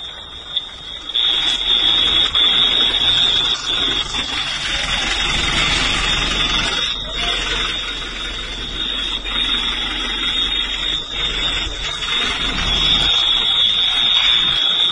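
A continuous high-pitched alarm tone that holds one pitch without a break, over a loud rushing noise that comes up sharply about a second in.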